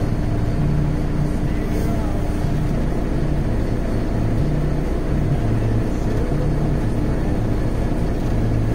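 Heavy truck's engine idling, a steady low rumble heard from inside the cab.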